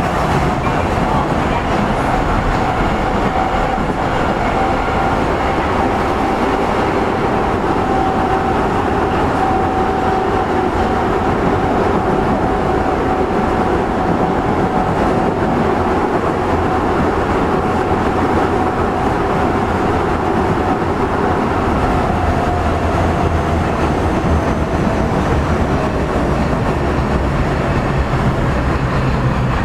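Osaka Metro 25 series subway train running through a tunnel, heard from inside the car: a steady rumble of wheels on rail with a motor whine. The whine sags slightly in pitch and the low rumble grows near the end.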